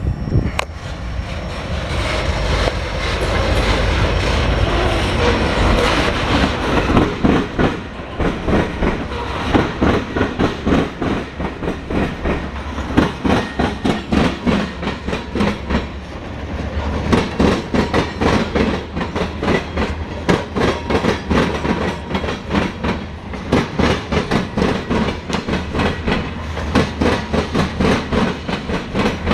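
Freight cars of a Norfolk Southern local train rolling past while being shoved backwards ahead of the locomotive. A heavy rumble gives way after several seconds to a fast, steady clickety-clack of wheels over the rail joints.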